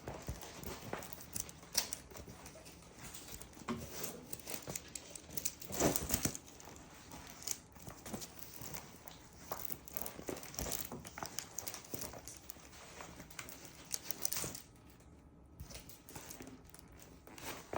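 Rustling and crinkling of a rolled diamond-painting canvas and its plastic packaging as it is unrolled and handled by hand, with scattered taps and knocks throughout.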